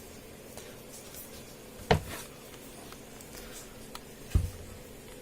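Two sharp clicks or knocks from handling an opened laptop, about two and a half seconds apart, over a faint steady hum.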